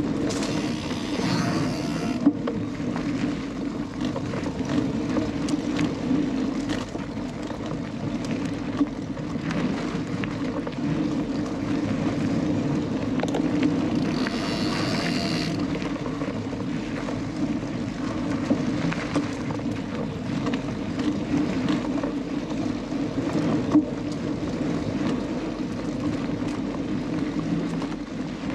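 Onboard riding noise of a Canyon Lux Trail mountain bike on a dirt forest trail: steady tyre rumble with scattered rattles and knocks from the bike over bumps, and a brief high-pitched buzz about halfway through.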